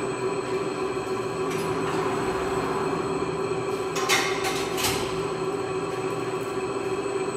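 Weber CCS 302 UB industrial meat slicer running, a steady mechanical hum with a held tone. Two brief sharp noises come about four and five seconds in.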